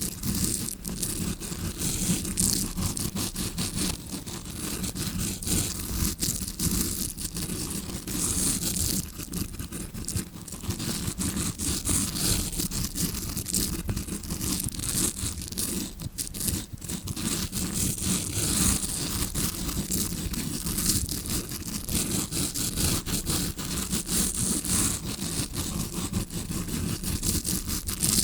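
Bristles of a tawashi scrubbing brush scratching and rubbing right against a microphone, a continuous crackly scraping that imitates ear cleaning as heard from inside the ear.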